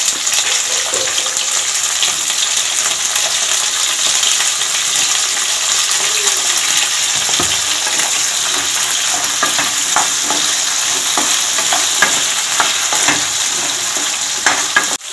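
Potato, drumstick and brinjal pieces frying in sesame oil in a nonstick kadai, with a steady sizzle. From about halfway through, a spatula scrapes and knocks against the pan as the vegetables are stirred.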